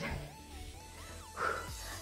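Faint background music with a steady bass and a thin, slowly wavering tone, and a short breath about one and a half seconds in.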